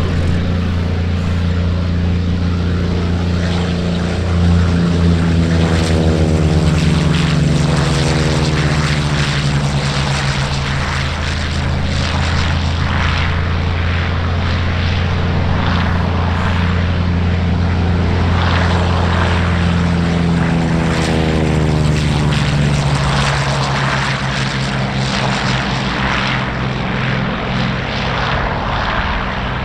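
P-40 Warhawk's propeller-driven V-12 engine running at power in flight, a loud steady drone. Its tone sweeps twice as the plane passes, about six seconds in and again about twenty-one seconds in.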